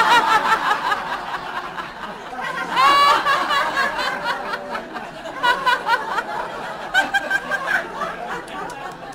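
A woman laughing at a microphone as a laughter-yoga exercise, with other people laughing along. The laughter is loudest at the start and again about three seconds in, then tapers off.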